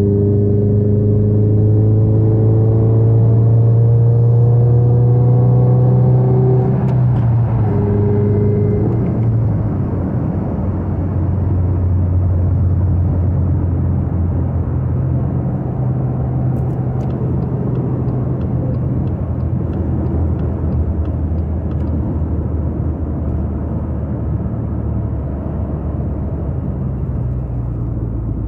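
2020 Subaru Crosstrek's flat-four engine through a Nameless Executive axleback exhaust, heard from inside the cabin: it climbs in pitch under acceleration for about six seconds, drops at an upshift about seven seconds in, and settles into a steady low drone at highway cruising speed, with road noise underneath.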